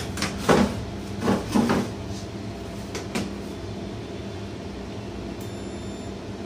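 A few short knocks and clatter of parts and probes being handled on a workbench in the first two seconds. From about five seconds in comes a faint steady high beep, a digital multimeter's continuity buzzer on a MOSFET whose pins are shorted.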